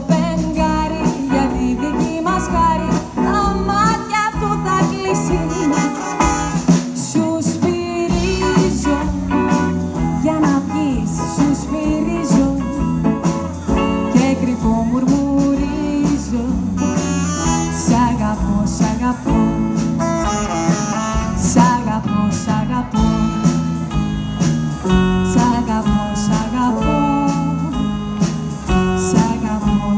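Live swing band playing an instrumental passage of a Greek song.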